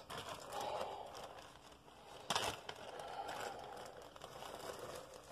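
Plastic bag of dried lavender rustling and crinkling in the hands, with one brief sharp crackle about halfway through.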